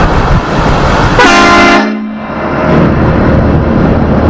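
A short blast of the Dodge Ram pickup's horn, one steady pitched tone about a second in that lasts just over half a second and cuts off sharply. The horn is tapped while its wiring is being checked.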